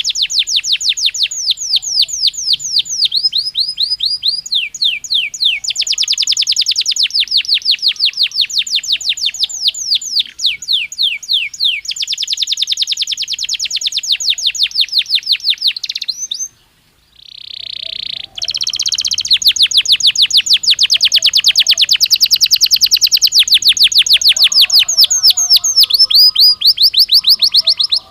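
Domestic canary singing: rapid trills of repeated high sweeping notes in phrases that change speed. The song breaks briefly about two-thirds through, then runs on in one long fast trill.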